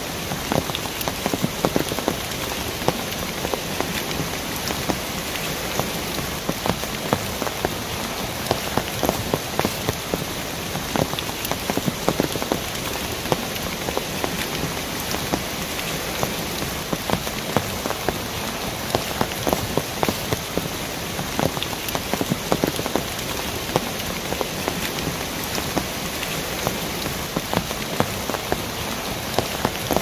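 Mountain stream cascading over rocks: a steady rush of water with many small, quick splashes.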